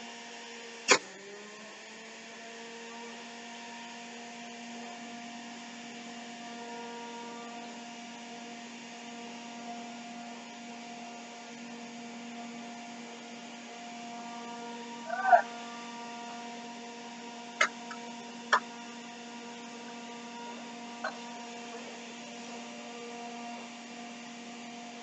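Electric juicer motor humming steadily, with a few sharp knocks and clicks as produce is pushed through it. The loudest knocks come about a second in and again near the middle.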